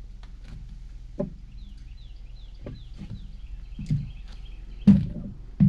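A songbird calling with a quick run of short falling chirps, while several sharp knocks sound, the loudest near the end.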